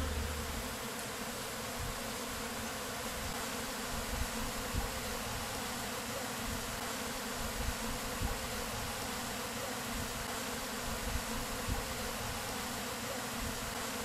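A large mass of honeybees, vacuumed up into a screened bee-vac box, buzzing in a steady, dense hum.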